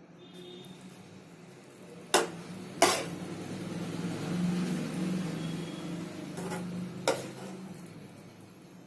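A ceramic plate knocks sharply against a hard surface three times, twice close together about two seconds in and once near the end, while it is handled. Under the knocks a low hum swells through the middle and then fades.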